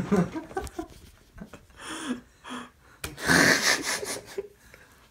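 Breathy, wheezing laughter and gasps from a teenage boy, with a sharp click about three seconds in followed by a long, loud breathy exhale.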